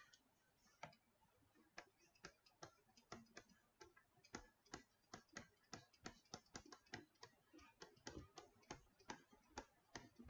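Faint, irregular ticks and taps of a stylus on a tablet screen while handwriting, about two or three a second.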